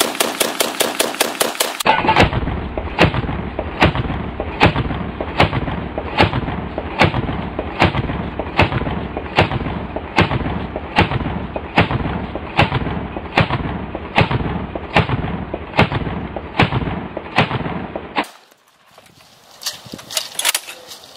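AA-12 fully automatic 12-gauge shotgun firing a sustained burst, about five or six shots a second. After about two seconds the same fire goes on as duller booms, evenly spaced about one a second, the way slow-motion playback sounds. The shots stop near the end.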